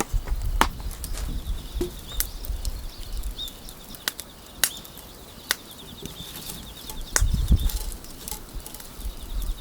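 Wood fire crackling in a stainless-steel fire pit, with sharp snaps scattered throughout. Low fluttering rumbles come in bursts over the first couple of seconds and again about seven seconds in.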